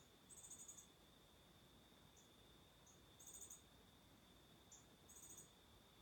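Faint insects calling: a steady thin high-pitched drone, with short rapid trills of high chirps repeating about every two seconds and a few single chirps between them.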